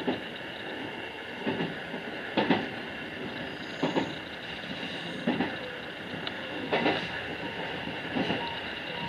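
JR West 221 series electric train running along the line, its wheels clacking over rail joints about every second and a half above a steady running noise.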